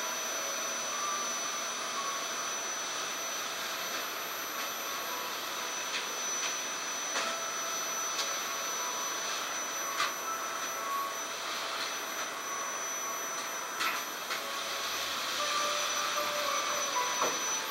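Steady hiss with faint high steady tones, broken by a few short sharp clicks.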